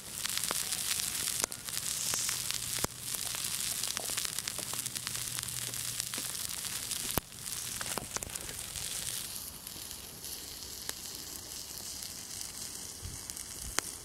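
Steady sizzling hiss with many small crackles and pops, as of meat searing on a hot stone over a wood fire; it drops a little quieter about nine seconds in.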